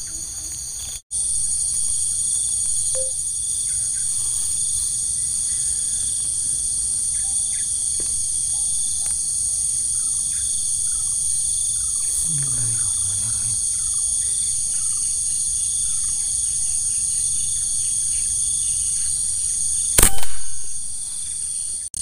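Air rifle shot about 20 seconds in: one sharp crack with a short ring, fired at a spotted dove perched in a palm. Steady high insect buzzing runs underneath.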